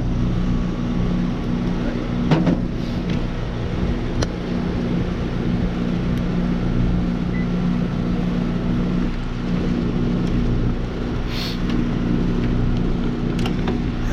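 Trane heat pump outdoor unit running steadily with a low hum after restart, its bad contactor dealt with, and sounding normal. A few short clicks and knocks of handling sound over it.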